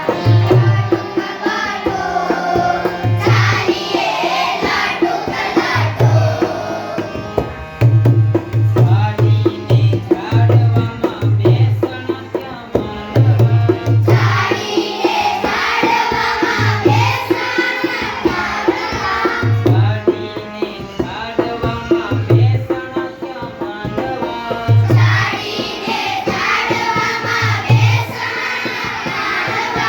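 Gujarati children's song with tabla accompaniment: a steady drum rhythm with deep bass strokes runs throughout, and sung lines come in three stretches with instrumental passages between them.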